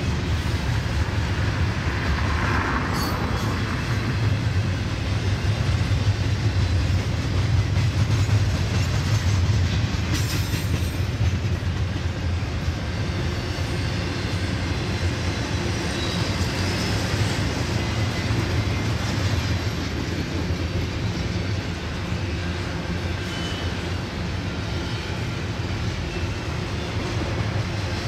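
Double-stack intermodal freight cars rolling past on the rails: a steady low rumble of steel wheels on track, with clickety-clack.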